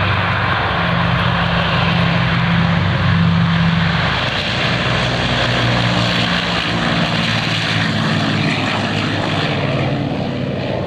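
Lockheed Super Constellation's four Wright R-3350 radial piston engines running at takeoff power: a loud, steady propeller-airliner drone whose humming tones shift slightly in pitch about halfway through as the plane takes to the air.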